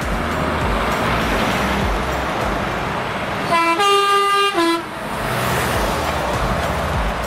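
Diesel truck engines running as lorries roll past. About three and a half seconds in, a passing Volvo truck sounds its horn for just over a second: a lower note, a higher note, then the lower note again.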